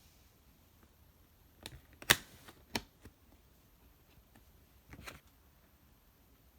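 A few sharp clicks and taps from handling an iPhone 11 and its packaging during unboxing. The loudest click comes about two seconds in, two more follow within a second, and a small cluster comes about five seconds in.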